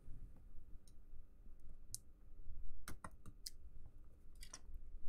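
Small scattered clicks and taps of fingers handling an opened PocketBook 614 e-reader's metal chassis. There is a strong click about two seconds in and a quick run of clicks around three seconds.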